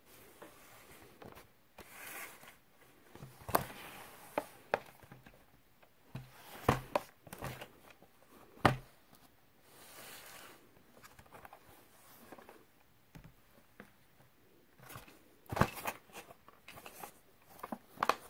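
A boxed model train locomotive being handled and turned over: scattered sharp taps and clicks of fingers and the box against a table, with short soft rustles and scrapes of the packaging.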